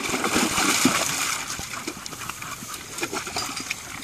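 A white Dogo Argentino puppy and another dog splashing and sloshing about in a plastic kiddie pool of water, heaviest in the first second or so, then smaller splashes.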